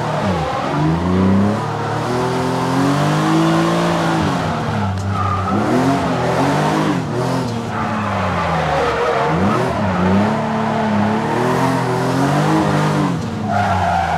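BMW E36 drift car's engine revving in repeated swells, pitch climbing and dropping again and again as the car is held sideways through drifts, over steady tyre and road noise. A brief high squeal rises near the end.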